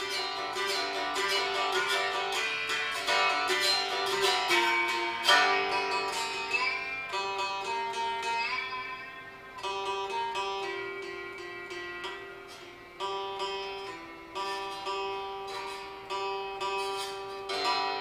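A homemade fretless resonator guitar tuned to open G, played with a metal slide and fingerpicked. Notes glide up and down over a ringing open-string drone. The picking is quick at first and turns into sparser, spaced notes about halfway through.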